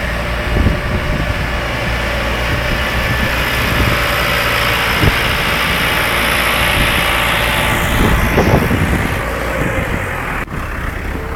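A vehicle engine running steadily at low revs, a continuous low hum under a hiss of wind and surf.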